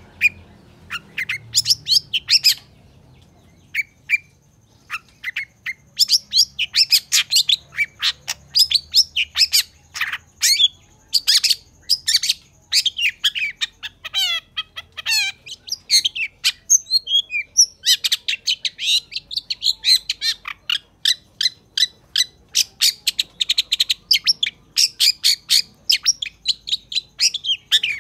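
Long-tailed shrike (cendet) singing a fast, chattering song of rapid, sharp notes. The song is sparse for the first few seconds, then runs on densely, with a short pause about halfway through.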